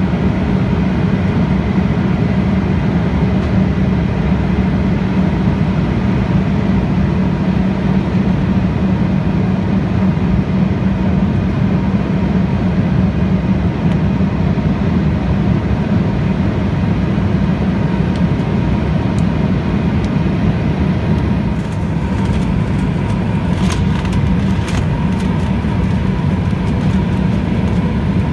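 Steady in-flight cabin noise of an Embraer ERJ-175LR jet: the even drone of its wing-mounted GE CF34-8E turbofans and the rushing air, with a faint steady whine over it. A few faint clicks near the end.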